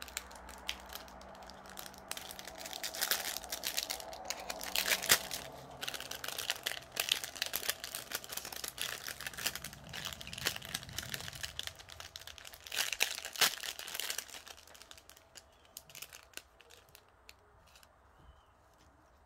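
Crinkling of thin clear plastic packaging being opened and handled: small plastic bags of diamond painting drills rustled between the fingers. The crinkling is dense and busy through most of it and dies away about three-quarters of the way through.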